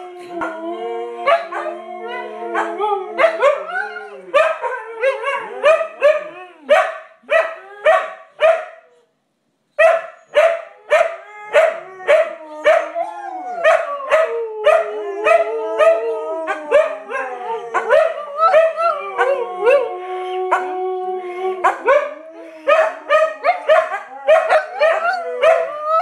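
Several Siberian huskies howling together: long, overlapping howls at different pitches that slide up and down, mixed with quick short barks and yips. The chorus cuts out completely for under a second near the middle.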